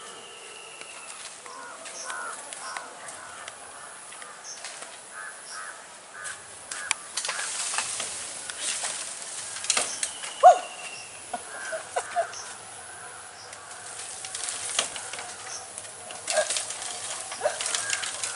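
Scattered rustles and snaps of bamboo leaves and stems, with footsteps, over faint bird chirps and an occasional high whistle. A sharp snap about ten seconds in is the loudest sound.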